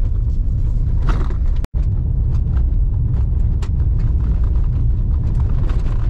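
Cab noise of a pickup truck driving on a rough dirt road: a steady low rumble of engine and tyres with scattered knocks and rattles from the bumps. The sound cuts out for an instant a little under two seconds in.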